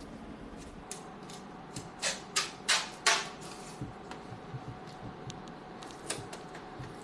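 Masking tape ripping off its roll in four quick pulls about a third of a second apart, then a few light ticks and one shorter rip as the tape is pressed along the edge of a canvas.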